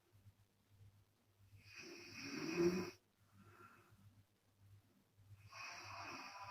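Woman snoring in her sleep, snoring on the out-breath with the lips flapping. One loud snore builds over about a second and stops abruptly near the middle, with a quieter breath just after it and another snore starting near the end.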